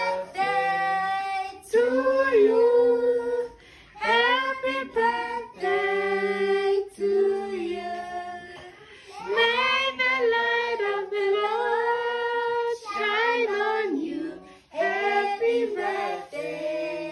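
Children and women singing together: a song in phrases of held notes, with short pauses between the phrases.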